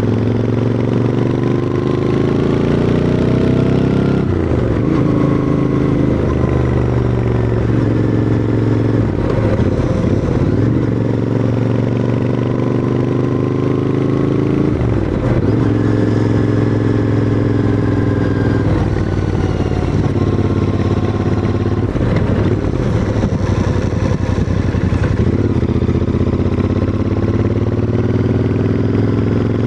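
Royal Enfield Interceptor 650's parallel-twin engine and exhaust pulling uphill under load, the revs climbing and then dropping back at each gear change or throttle lift, about half a dozen times.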